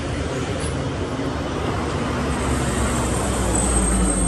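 A city bus passing close, its engine rumble building toward the end. A thin high squeal comes in near the end.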